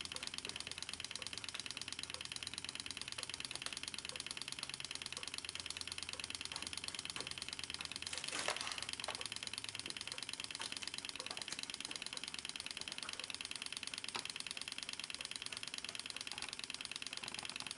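Small model Stirling hot-air engine running at around 1,000 RPM with its new graphite piston: a fast, even mechanical clicking from the piston and linkage. There is a louder knock about eight and a half seconds in.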